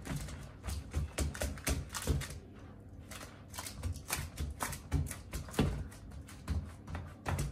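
Fingertips pressing and dimpling soft dough in a round metal baking pan, making a run of irregular soft taps and thumps, several a second.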